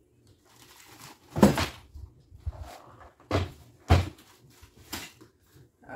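Knocks and rustling of things being pulled out of a wooden cabinet: a few sharp bumps, the loudest about a second and a half in, then two close together past the middle and a lighter one near the end.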